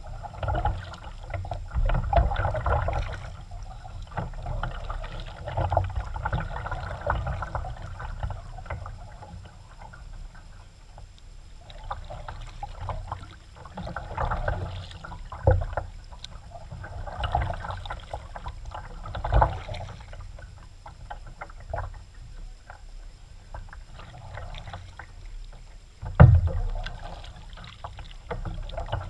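Kayak being paddled: the paddle dips and splashes in slow, uneven strokes, with a few sharp knocks, the loudest about three quarters of the way through.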